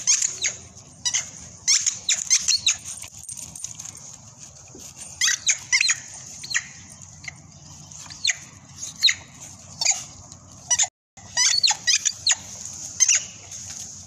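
Squeaky rubber dog ball squeaking over and over in short, irregular bursts as a dog chews and bites on it.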